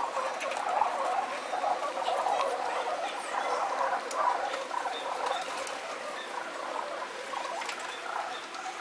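A flock of feral rock pigeons cooing and scuffling as they feed and fight, played back at double speed: a dense, fast, continuous chatter.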